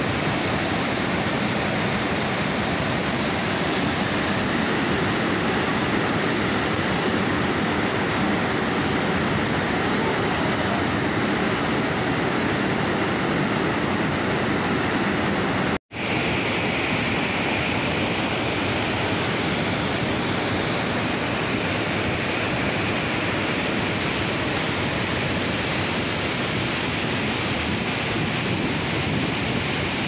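Floodwater pouring over a dam spillway and churning white at its foot: a steady rush of falling water, broken by a split-second dropout about halfway through where the recording cuts.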